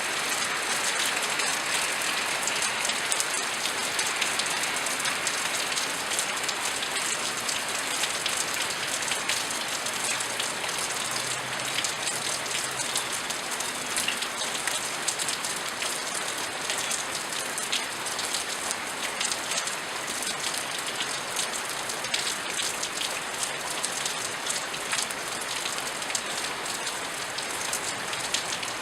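Steady rain falling, with many separate drops ticking throughout.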